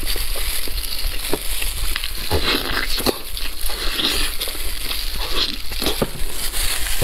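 Close-miked wet chewing and lip smacking while eating pork knuckle, with the meat and skin torn apart by gloved hands: an irregular run of short smacks and clicks.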